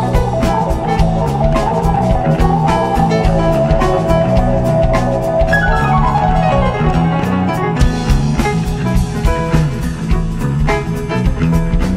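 Live jam band playing an instrumental stretch on drum kit, electric bass and keyboards. About halfway through, a run of notes falls steadily in pitch.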